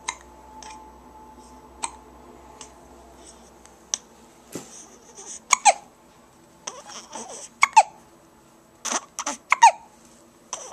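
A baby hiccupping: single short, sharp hiccups about every two seconds at first, then from about halfway on quicker clusters of hiccups mixed with brief squeaky vocal sounds.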